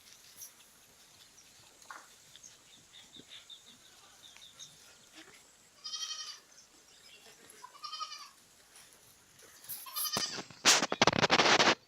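Goats bleating: three short, high calls about two seconds apart. Near the end a loud, rough rustling burst of about a second drowns everything else.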